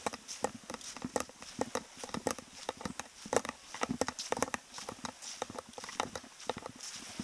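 Footsteps on a path, irregular steps of a person walking, several a second, over a faint steady high hiss.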